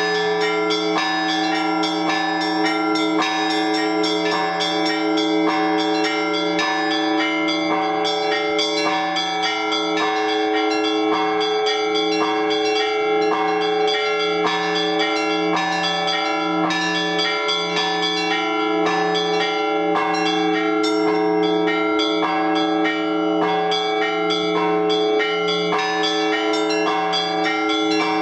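Orthodox church bells rung together by hand in a continuous peal. Small bells chime rapidly over the sustained ringing of larger bells, with a low bell sounding about once a second.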